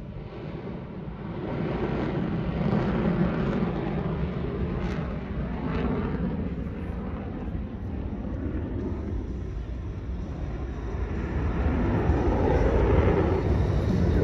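Jet noise from a U.S. Air Force F-22 Raptor's twin turbofan engines as the jet flies its display, swelling again toward the end.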